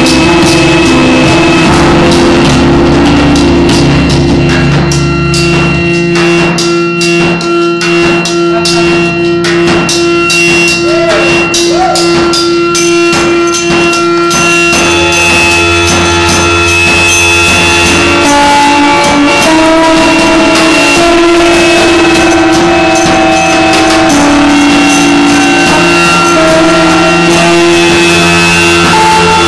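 Loud live music: electric guitar over sustained, layered droning tones, with a run of evenly spaced percussive hits for several seconds partway through.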